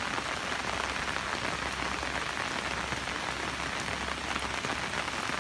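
Heavy rain falling steadily on surfaces outdoors, a constant dense patter and hiss of many drops.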